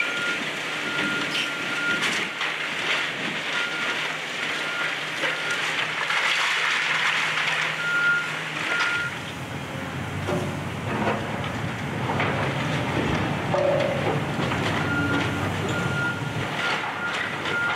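Demolition excavators tearing into a brick building: diesel engines running, brick and debris crunching and falling, and a backup alarm beeping in short runs near the start, around the middle and again near the end.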